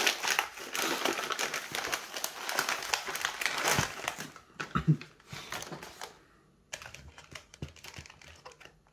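Plastic food packaging crinkling as it is handled, dense for about four seconds, then quieter scattered clicks and rustles.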